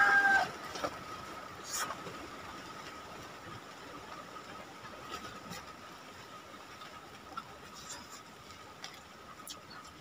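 The end of a rooster's crow in the first half second, then a faint steady tone and a few soft scattered clicks of eating by hand.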